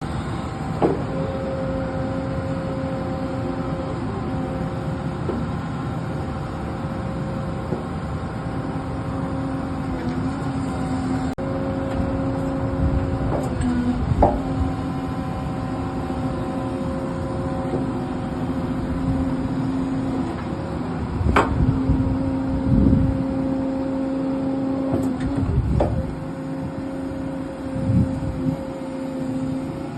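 Excavator's diesel engine and hydraulics running steadily with a droning whine, working an attachment, with a few sharp metallic clanks.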